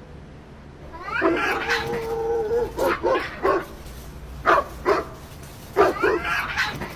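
A pet animal calling: one drawn-out call about a second in, then a run of short sharp yelps, and another call near the end.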